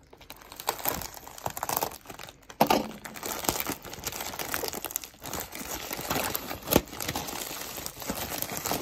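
Plastic poly mailer bag crinkling and tearing as it is pulled open by hand, in irregular crackles with sharper rips about two and a half seconds in and near seven seconds.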